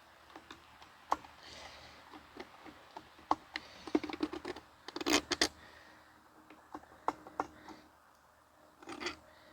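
Plastic vacuum-cleaner housing and parts being handled during disassembly: scattered clicks, taps and light scrapes, with a quick run of louder knocks about five seconds in.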